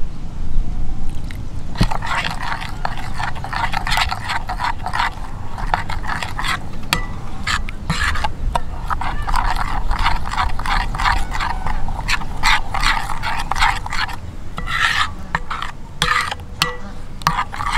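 Arrowroot-flour batter being stirred and mixed in a bowl as water is worked in: a dense, uneven run of small clicks and scrapes, starting after a short pause.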